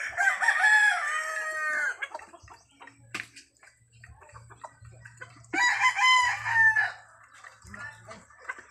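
Gamecock roosters crowing: two long crows, the second about five seconds after the first.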